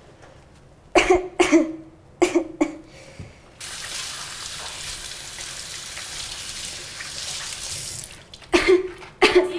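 A woman coughing twice, then twice more. Next a kitchen tap runs onto dishes in the sink for about four and a half seconds, and she coughs twice again near the end.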